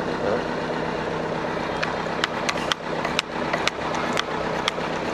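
Hand grease gun being pumped into a grease nipple, a run of sharp clicks in the second half, over an engine idling steadily.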